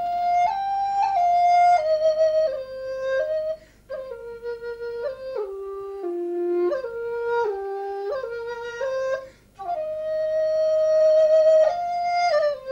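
Background music: a solo flute playing a slow stepwise melody in phrases, with short breaks between phrases about four and nine and a half seconds in.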